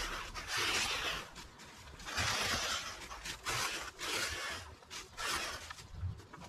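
Garden clean-up by hand: a run of rough scraping, tearing strokes, about one a second, with dull low thuds under some of them.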